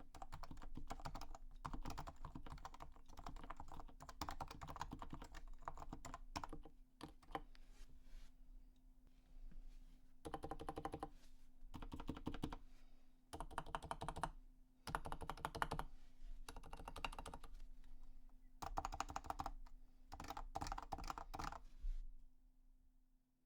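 Typing on a lubed and tuned Leopold FC660C keyboard with 45 g Topre switches, #3 silencing rings and Realforce R2 keycaps. A continuous stream of keystrokes gives way to short bursts of fast typing with pauses between them, and the typing stops shortly before the end.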